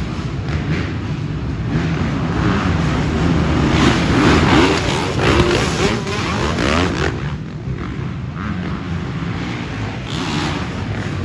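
Several motocross bikes racing past on an indoor dirt track, their engines revving up and down, loudest about halfway through.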